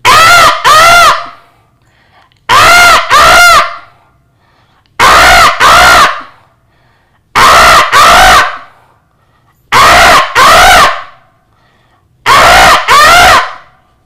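A man imitating a house crow's caw with his voice: six pairs of caws, one pair about every two and a half seconds, each caw rising and then falling in pitch.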